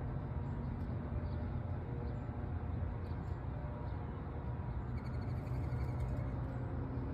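Outdoor ambience: a steady low rumble, with faint bird chirps about five to six seconds in.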